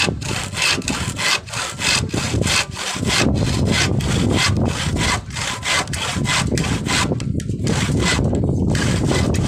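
Hand saw cutting through wood in steady back-and-forth strokes, about three a second.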